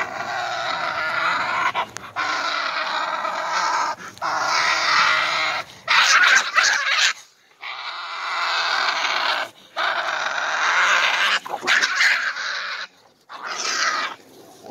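A badger seized by a pit bull, screeching loudly and harshly in its grip. The screeches come in bouts of one to two seconds with short breaks between.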